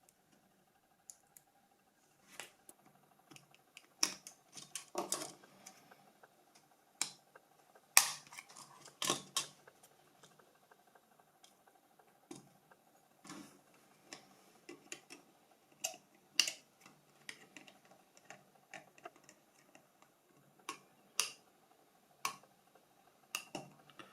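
Irregular small clicks and taps of a Nokia 5510's plastic and metal parts being handled and worked apart on a table, with the loudest knock about eight seconds in.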